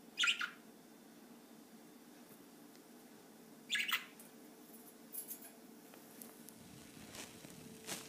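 Pet budgerigars giving two short chirps about three and a half seconds apart, with a few faint ticks, over a faint steady hum.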